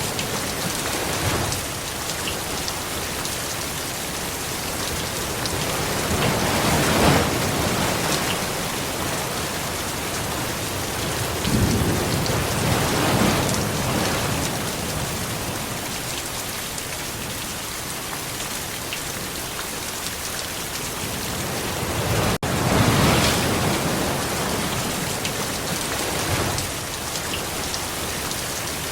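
Steady rain falling, with three louder, deeper swells in the downpour: one about a quarter of the way in, one near the middle and one about three-quarters through.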